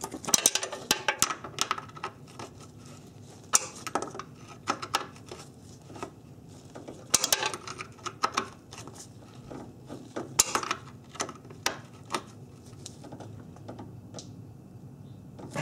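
Sharp metallic clicks and clinks of a box-end wrench on a radiator fan shroud bolt as it is snugged up, coming in short clusters every few seconds.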